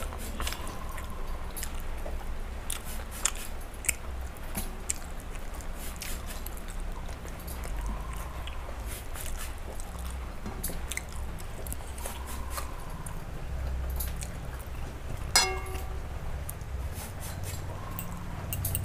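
Close-up chewing of paratha and soybean-pumpkin-potato curry, eaten by hand, with many small wet mouth clicks. A single sharp clink rings briefly about fifteen seconds in.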